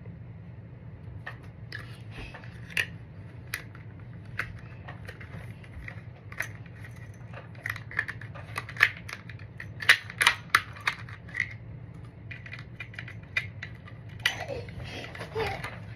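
Irregular small clicks and taps from the jaw mechanism of a reach-and-grab tool being handled and fitted back together by hand. The clicks come thickest around the middle, over a steady low hum.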